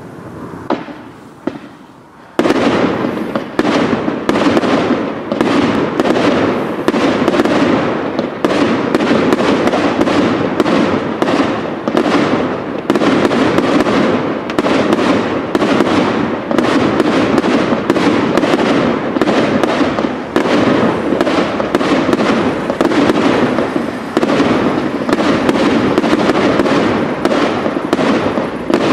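Fireworks: two single bangs, then from about two seconds in a dense, continuous barrage of rapid-fire shots and bursts that keeps up steadily.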